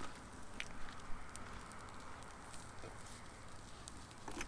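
Rice and an egg frying in a pan over a small wood-fired stove, a steady sizzle with scattered sharp clicks and crackles.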